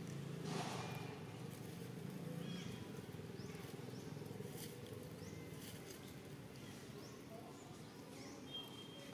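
Faint outdoor ambience: short high bird chirps repeat over a low steady hum, with a brief noisy rustle about half a second in.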